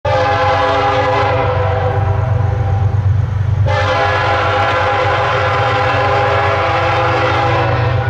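Freight locomotive's multi-chime air horn sounding a chord, with a low rumble underneath: a long blast that thins out after about a second and a half, then a second blast starting about three and a half seconds in and held.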